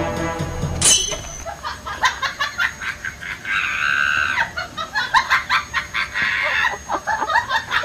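Tabby cat making a run of short, clucking, chicken-like calls, with one longer drawn-out call about four seconds in and a quick series of short calls near the end.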